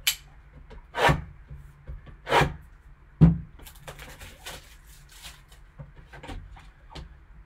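Gloved hands unwrapping a sealed trading-card box: a few sharp knocks and rustles of the box being handled, the loudest about three seconds in, then a run of light crinkling as the wrapping comes off.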